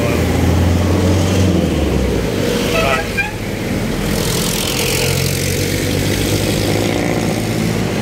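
Road traffic on a busy city street: a low engine rumble for the first couple of seconds, then the rush of vehicles passing.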